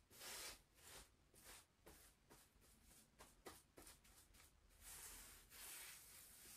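Faint swishing strokes of paint being applied to a stone chimney, about one or two strokes a second.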